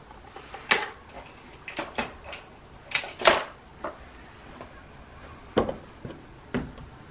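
Sharp clicks and clacks from a Gamo Swarm Fusion 10X Gen2 .22 break-barrel air rifle being handled, about nine at irregular spacing, the loudest a little over three seconds in.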